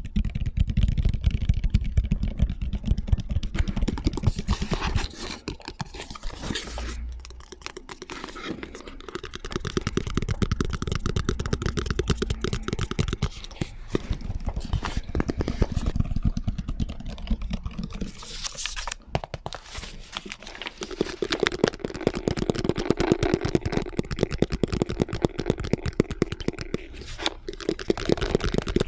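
Close-miked ASMR tapping: fast runs of fingernail taps and scratches on various objects, layered and crossfading from one object to the next. In the last third the taps carry a low ringing tone.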